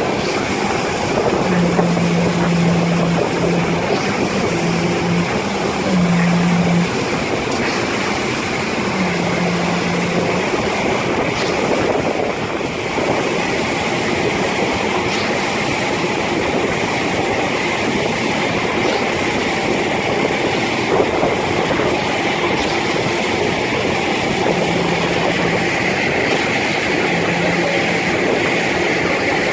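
Heavy machinery running steadily during a concrete slab pour, with a low hum that starts and stops several times in the first ten seconds and again near the end.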